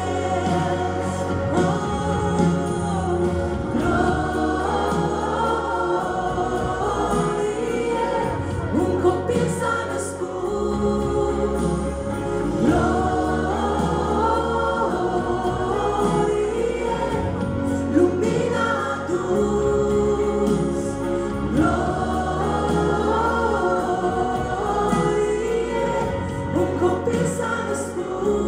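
Mixed choir with a female lead singer performing a Christmas worship song in Romanian, backed by a live band of keyboard, electric and bass guitars, acoustic guitar and drums. Sustained bass notes change every couple of seconds under the sung melody.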